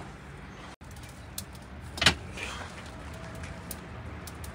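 Metal meat racks and hooks clinking and knocking against the brick tandoor, with a few light clicks and one loud clank about two seconds in, over a steady low hum.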